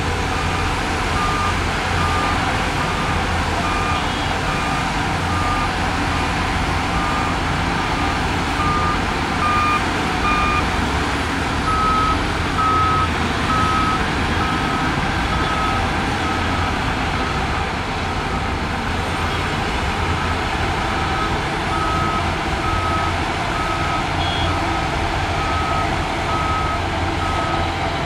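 Heavy earthmoving machine's reversing alarm beeping steadily, a little over one beep a second, over the low running of a diesel engine. About twelve seconds in, the beeps shift to a slightly higher pitch and a slower pace.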